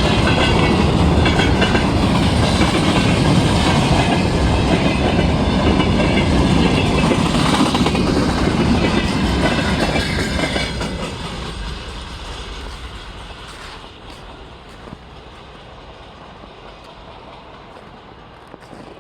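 Freight train wagons rolling past over a railway bridge, with a loud rumble and wheel clatter. The sound fades from about ten seconds in as the train moves away.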